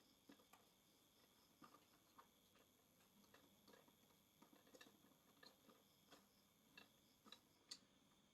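Near silence with faint, irregular clicks and taps: small plastic action-camera mount parts being handled and tightened.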